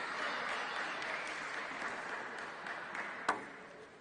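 Applause between points of a table tennis match, a steady patter of clapping that fades away near the end, with one sharp click about three seconds in.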